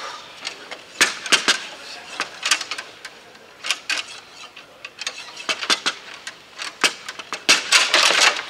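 Bonzini foosball table in play: irregular sharp clacks of the ball being struck by the rod figures and bouncing off the table, with a fast flurry of clacks near the end.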